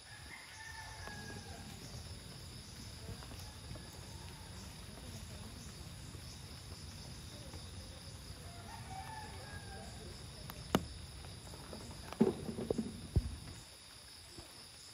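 Outdoor ambience: a steady, high-pitched insect drone over a low background hum, with faint calls now and then. A single sharp click comes about three-quarters of the way through, then a short run of knocks near the end.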